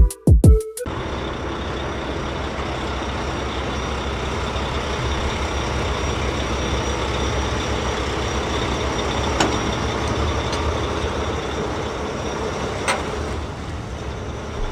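A vehicle engine, truck-like, running steadily as a continuous rumble, starting about a second in as a short musical jingle ends.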